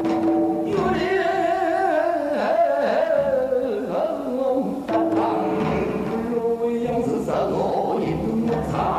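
Korean traditional salpuri music: gueum, a wordless sung melody with heavy vibrato, glides downward over the first few seconds and starts again about halfway through, with instruments underneath.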